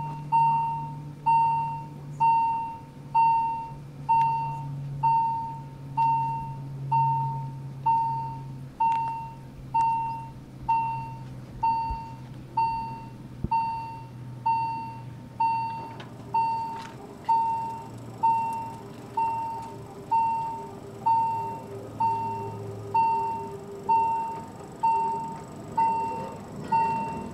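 Electronic warning bell sounding a single decaying ding about once a second at a steady, unbroken rhythm. A low hum underneath dies away about three-quarters of the way through.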